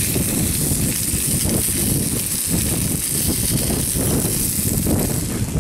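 Wind rumbling on the microphone over the steady hiss of a camping gas stove burning under a pan of sausages.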